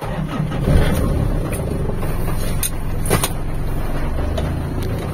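A pickup truck's engine running, heard from inside the cab as the truck is driven and turned around. The sound comes up suddenly at the start and then holds steady and low.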